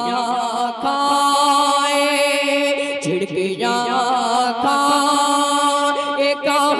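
Male voice singing a naat, an Urdu devotional song, drawing out long wavering notes that shift to new pitches every second or two.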